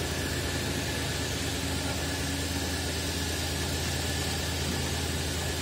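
Diesel generator set running steadily: an even engine hum with a faint steady high whine above it and no change in speed.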